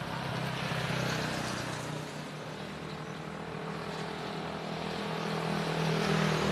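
A Hausmann 12 kW gasoline generator's twin-cylinder engine running steadily, with its air filter removed, as an even, low mechanical hum.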